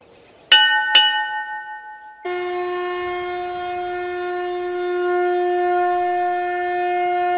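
Two strikes of a metal bell, half a second apart, each left ringing; then, about two seconds in, a conch shell (shankha) blown in one long, steady note that grows a little louder midway.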